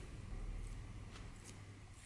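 A few short, light scrapes of a pointed metal tool picking paint off the raised cast lettering on a painted vise body.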